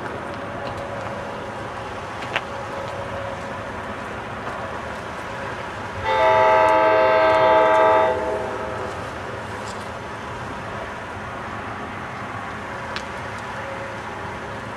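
Approaching SEPTA commuter train sounding one horn blast of about two seconds, starting about six seconds in, over a steady background rumble.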